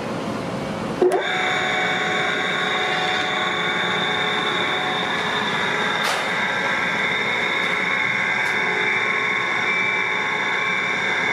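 Nagasawa Sawaboy NSG-08F food grinder switching on with a click about a second in, then running steadily with a high whine over its motor noise.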